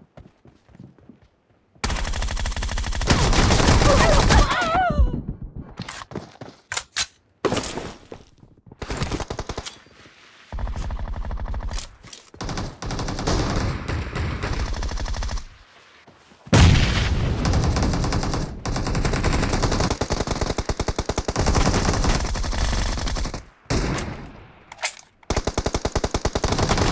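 Video game gunfire: long bursts of rapid automatic fire, starting about two seconds in and broken by short pauses.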